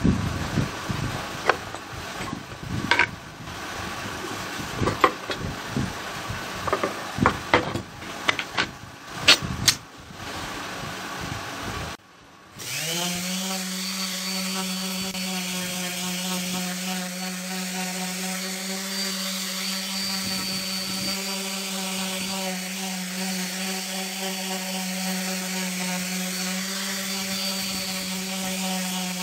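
Irregular knocks and clicks of hand work at a clamped pine board for about the first twelve seconds. Then an electric random orbital sander starts and runs steadily on the pine board, a continuous even hum.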